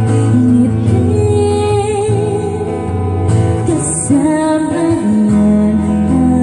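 A woman singing into a microphone with acoustic guitar accompaniment, a slow song with long held notes.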